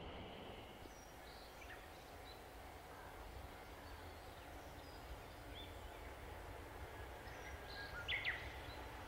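Quiet outdoor ambience with a steady low rumble underneath and scattered short bird chirps, two louder chirps just after eight seconds in.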